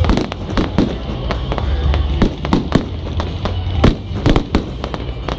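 Fireworks display: a rapid, irregular run of bangs and crackles, several a second, over a steady low rumble.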